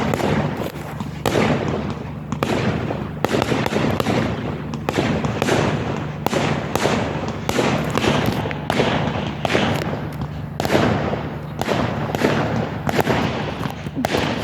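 Fireworks going off in a rapid barrage: many bangs and crackling pops, several a second, overlapping one another.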